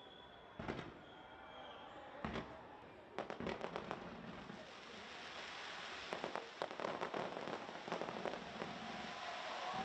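Fireworks exploding: a few single bangs in the first couple of seconds, then from about three seconds in a quick run of many cracks and reports over a wash of noise that builds toward the end.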